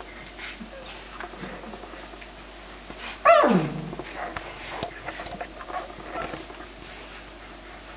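Bernese mountain dog puppies play-fighting: one gives a single loud yelp about three seconds in that falls steeply in pitch, amid faint scuffling and small puppy noises.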